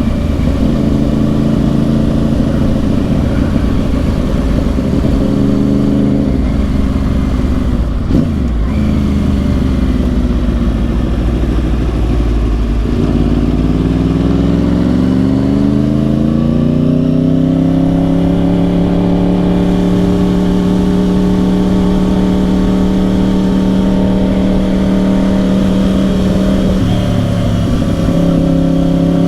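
2010 Yamaha R1's crossplane inline-four through dual Yoshimura exhausts while riding. The engine note holds steady, drops about 12 seconds in, then climbs over several seconds as the bike accelerates and settles at a steady higher pitch, with a brief break near the end like a gear change. Low wind rumble sits underneath.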